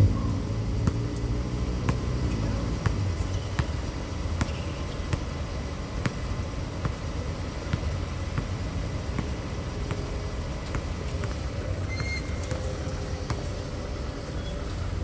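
Basketball being played on an outdoor court: scattered sharp knocks of the ball bouncing on the hard surface over a steady low rumble, with a brief high squeak of a shoe near the end.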